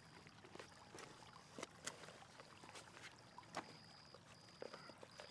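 Near silence with faint rustles and a few soft clicks of hands handling a small object, and a faint high steady tone that breaks off and returns every second or so.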